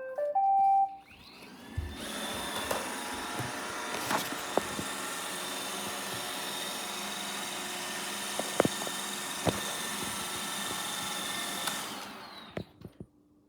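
iRobot Roomba 880 robot vacuum: a short run of beeps at the very start, then its vacuum motor spins up and runs with a steady whir, broken by a few sharp knocks, before spinning down near the end.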